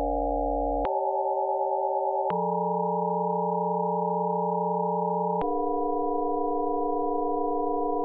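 Eight sine-wave oscillators in a Pure Data patch sounding together as a steady chord of random pitches, all below about 1 kHz. Three times, about 1, 2.5 and 5.5 seconds in, the chord jumps with a click to a new random set of pitches.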